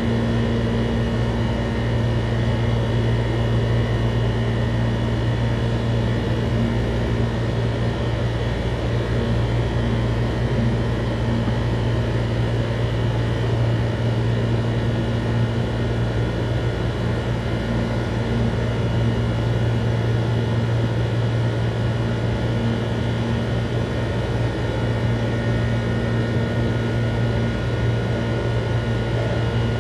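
Steady machine hum: a low drone with a fainter tone above it and faint high whining tones, unchanging throughout.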